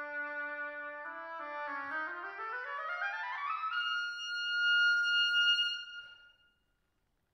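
Solo oboe playing held low notes, then a fast rising run up to a high note held for about two seconds, which ends a little after six seconds in.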